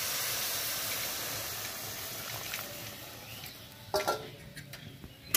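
Cooking water from boiled peas and chana dal poured into a hot kadai of frying potatoes and chickpeas, splashing and sizzling, the hiss slowly dying down as the liquid covers the vegetables. A short knock about four seconds in.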